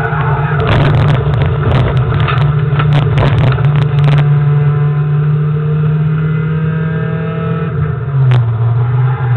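Rallycross car's engine heard from inside the cabin, running hard at a fairly steady pitch, with a burst of rattling clicks over the first few seconds. The engine note dips near the end.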